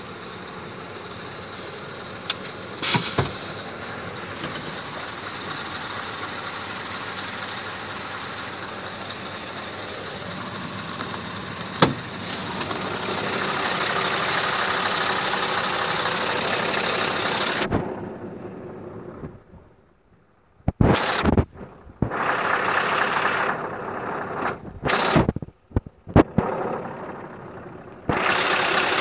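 Scania V8 diesel truck engine running, heard from inside the cab; it gets louder about twelve seconds in. Near the end the sound fades, then cuts in and out abruptly several times, with a few sharp clicks along the way.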